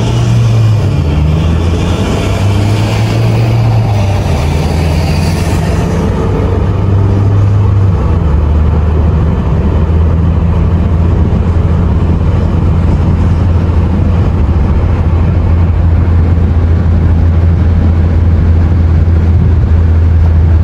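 Car engine running while driving, with road noise. The engine note rises and falls several times over the first eight seconds, as with accelerating and gear changes, then holds steady.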